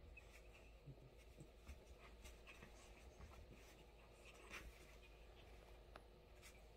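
Near silence, with faint scattered scratching and soft rustling of two small dogs tussling on bedsheets.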